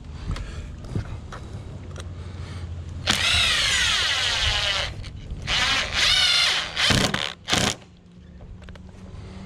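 Power drill running in bursts: one run of about two seconds whose pitch dips at the start, then a run of about a second and two brief triggers.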